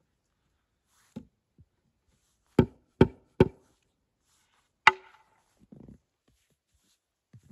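Sharp blows on wood, like chopping or knocking: a faint knock, then three quick strikes in a row, and one more a moment later that rings briefly.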